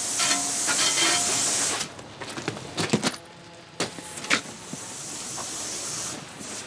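Garden hose spray nozzle hissing as water is sprayed over a boat, stopping a little under two seconds in, with a few knocks and clicks. Then it sprays again more softly and fades near the end.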